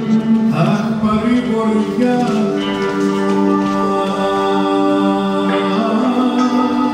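Music from an Epirote-style Greek piece: long held notes move slowly in steps over a steady drone, with singing.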